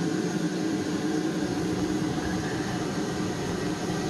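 Water running through the bidet's braided supply hose and T fitting under pressure, a steady hiss with a low hum, while the joints are checked for a slow leak.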